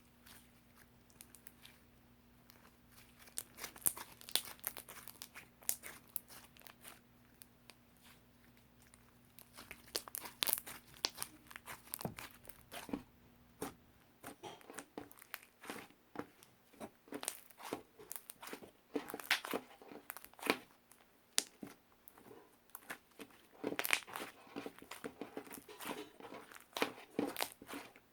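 Irregular close-up crinkling and crackling, like crinkly material being handled, with sharp clicks that grow busier in the second half. A faint low steady hum underneath stops about halfway through.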